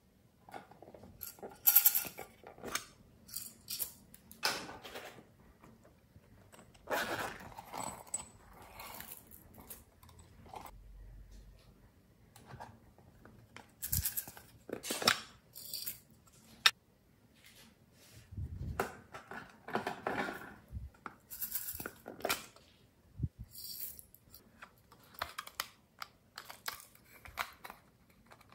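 Small plastic containers being handled by hand: irregular clicks, taps and short rustles as they are picked up, turned over and opened.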